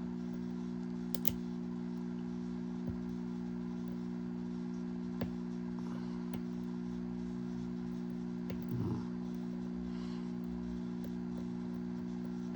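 Faint, scattered clicks of a lock pick and tension tool working the pins inside a Goal Z lock, over a steady low hum.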